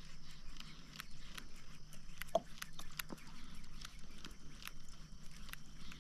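Light, sharp clicks and ticks repeating about two to three times a second, somewhat unevenly, from a pedal-driven fishing kayak's drive being pedalled as it moves over the water.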